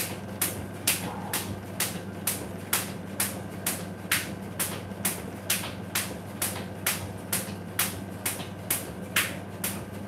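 Jump rope slapping a tile floor with each turn, an even rhythm of sharp clicks a little over twice a second, as she skips with alternating front-back split steps. A faint steady low hum runs underneath.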